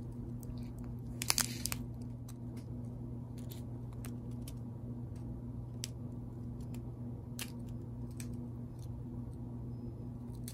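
Strip of plastic zip bags filled with square diamond-painting drills crinkling as it is pulled along, with scattered small crackles and a louder rustle about a second in. A low steady hum runs underneath.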